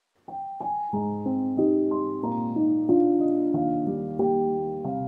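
Background piano music: two single notes, then a steady run of chords.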